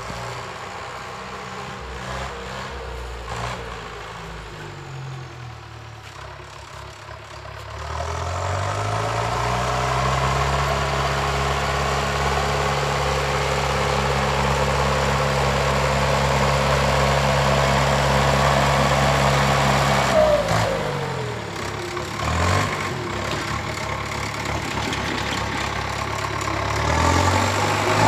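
Zetor Super 50 Turbo tractor's diesel engine working in the field with an implement in tow. About eight seconds in it revs up and holds high, steady revs, drops back about twenty seconds in, and picks up again near the end.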